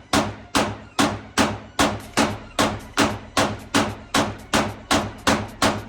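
A 9mm pistol fired in a fast, steady string, about two to three shots a second, each a sharp crack with a short ringing tail.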